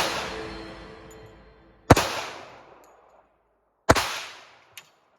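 Two pistol shots from a Rock Island Armory M1911A1 in .45 ACP, about two seconds apart, each followed by an echoing tail. A music track's last chord fades out at the start.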